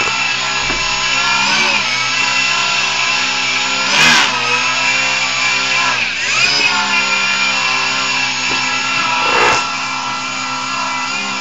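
Brushless (BLDC) motor spinning a small rotor at the end of a pivoting arm, a continuous electric whirr whose pitch dips and rises as the speed and angle controllers change the motor speed to swing the arm to a new angle. Two short louder surges come about four and nine and a half seconds in.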